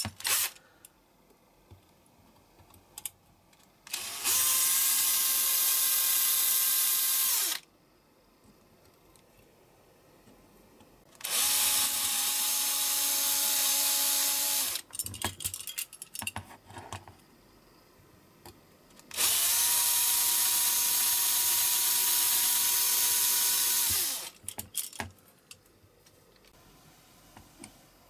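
Cordless drill drilling out the rivets of a die-cast model car's baseplate: three separate runs of a steady motor whine, the last one the longest, each spinning up and winding down. Small clicks and knocks from handling the part come between the runs.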